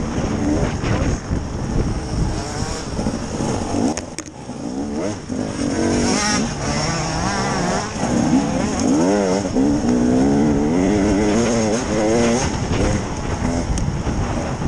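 KTM EXC 300 two-stroke enduro motorcycle engine being ridden hard, heard close up from on the bike. The revs rise and fall repeatedly with the throttle, easing off briefly about four seconds in.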